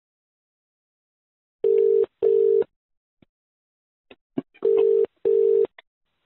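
Telephone ringback tone heard down the line: two double rings, each a pair of short, steady tone bursts, meaning the called number is ringing and not yet answered. A few faint clicks on the line between and after the rings.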